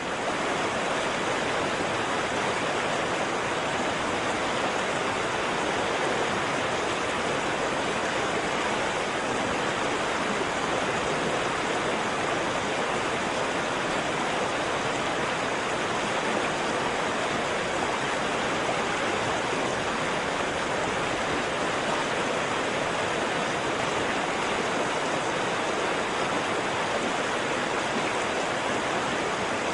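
Waterfall: water falling and rushing in a steady, dense hiss with no breaks.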